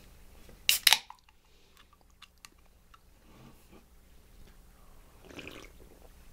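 An aluminium beer can cracked open about a second in, a sharp pop and short fizz, followed by faint clicks as the can is handled and a sip of beer near the end.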